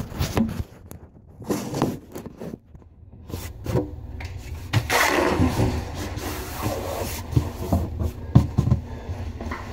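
Irregular rubbing, scraping and knocking of handling noise as someone crawls in under a bathroom vanity cabinet, the camera brushing and bumping against the cabinet.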